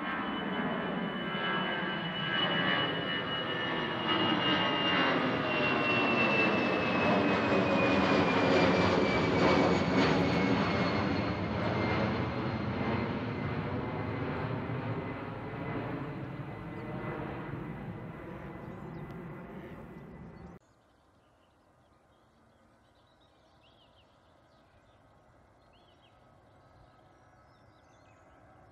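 Airbus A320-family twin-jet airliner climbing out overhead: loud jet engine noise with a high whine that slowly falls in pitch as it passes and draws away, loudest a little before the middle and then fading. About two-thirds of the way through it cuts off suddenly, leaving only faint background noise.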